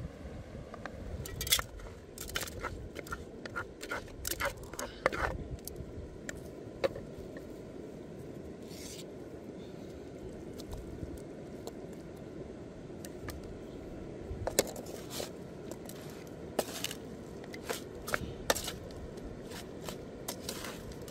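A spoon scraping and knocking against a steel pan and a wooden mortar as chili paste and octopus are worked, short sharp scrapes and clicks in two spells, over a steady low background hiss.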